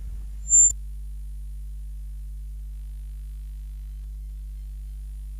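A short, high-pitched electronic beep about half a second in, over a steady low electrical hum.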